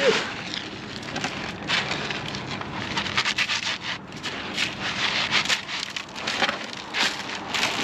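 Caked rock salt (ice melt) being worked in the spreader: loose granules hissing and crunching, with irregular sharp crackles as hardened clumps are broken up.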